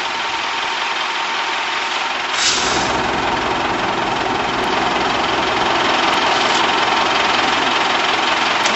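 Machinery engine running steadily. About two and a half seconds in there is a brief hiss, after which it runs a little louder with more low rumble.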